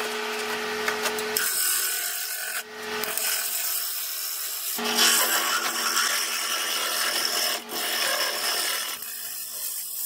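Wood lathe running with a steady hum while a carbide finishing scraper cuts across the face of a spinning walnut and hard-cured epoxy resin platter. The tool makes a coarse, continuous scraping hiss that starts about a second and a half in, breaks off briefly twice and thins near the end.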